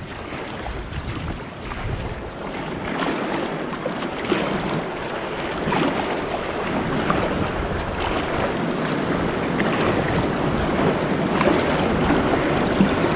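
Whitewater rushing around a packraft as it runs a rapid, a steady roar of water that grows louder as the raft goes down the rapid.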